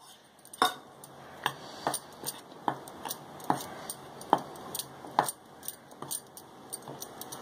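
Steel spoon stirring gram flour and oil in a glass bowl, clinking against the glass in about ten irregular taps, with soft scraping of the flour between them.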